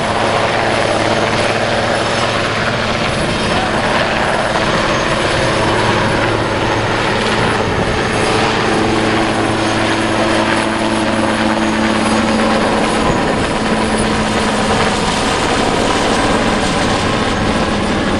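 Army Cougar twin-turbine helicopter's rotor and turbines running loudly and steadily at high power while it lifts a vehicle slung beneath it.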